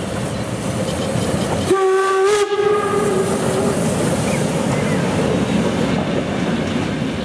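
DR class 52.80 2-10-0 steam locomotive passing close by under steam, with a loud rushing of exhaust and running gear. About two seconds in, its steam whistle sounds one steady blast that fades out over about two seconds.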